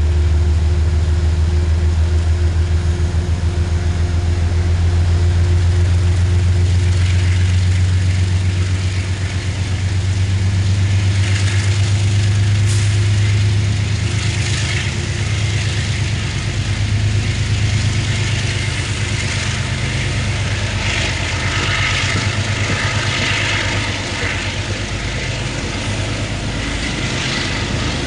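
Diesel locomotive engine running with a deep steady drone as the train moves along the platform, joined from about ten seconds in by the rattle and clatter of the coaches' wheels on the rails.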